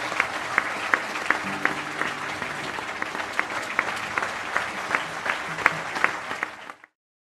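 Audience applauding, with loud individual claps standing out at about three a second. The applause cuts off suddenly near the end.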